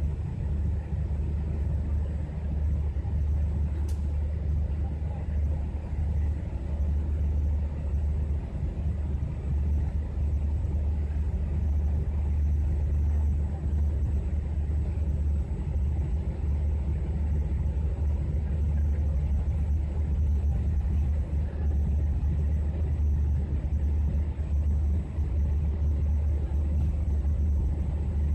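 Passenger train rolling slowly out of a station, heard from the rear of the last carriage: a steady low rumble from the wheels and running gear on the track.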